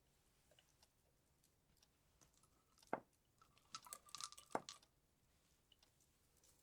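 Christmas tree baubles being handled and hung: faint clicks and light clinks, with a brief ringing tone near the middle.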